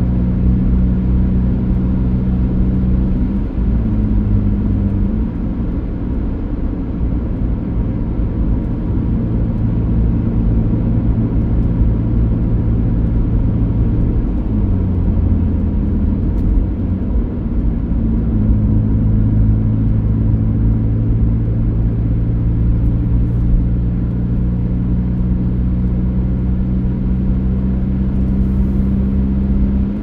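A car engine running steadily over low road rumble while driving, its note shifting up and down a few times as the engine speed changes.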